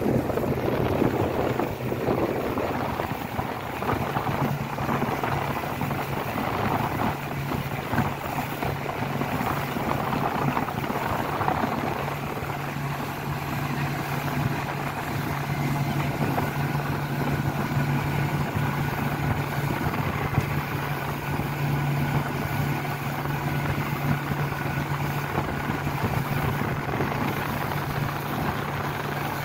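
Suzuki outboard motor running steadily at cruising speed, with water rushing and splashing along the hull, heavier in the first half.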